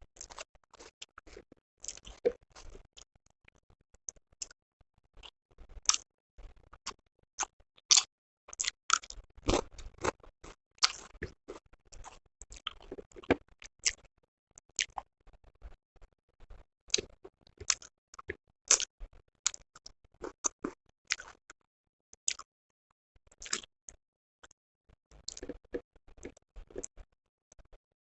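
Close-miked eating of a meal of chicken curry, rice and roti: chewing and mouth sounds, a dense, irregular run of short crisp clicks and smacks with a few brief pauses.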